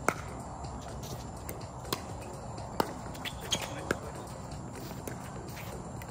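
Pickleball rally: sharp pops of paddles hitting the plastic ball, about five of them over the first four seconds, the last few coming quickly.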